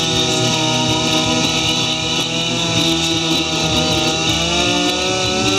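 Two-stroke chainsaw running steadily at high revs, its pitch drifting slightly down and back up.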